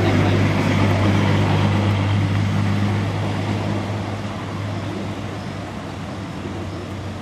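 A motor vehicle engine running with a steady low hum and a broad noise over it, slowly growing quieter.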